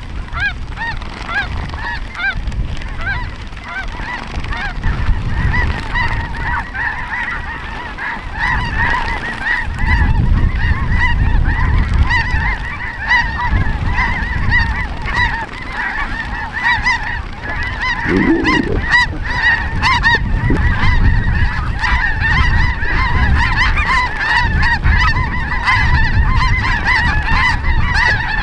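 A flock of snow geese calling overhead: many overlapping high, yelping honks that grow denser and more continuous as the birds come in.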